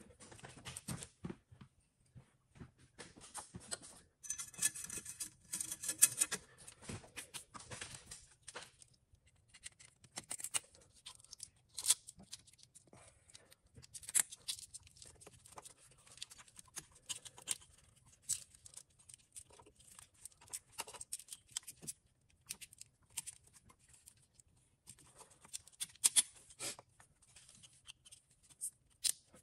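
Faint scattered clicks and rattles of hand tools and engine parts as nuts are run down and a glow plug wiring harness is refitted, with a denser run of rapid clicking a few seconds in.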